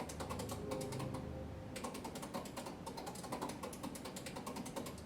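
Rapid, irregular mechanical clicking, many clicks a second, over a low steady hum.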